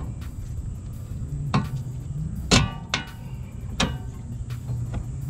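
Wrench clicking against the nut and stud of a new sway bar end link as it is fitted and tightened: about four sharp metallic clicks, the loudest about halfway through, over a steady low hum.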